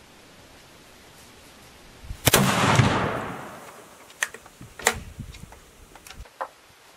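A single shot from a Wänzl rifle in 14x33R, about two seconds in. The report echoes away over about a second and a half and is followed by a few sharp clicks.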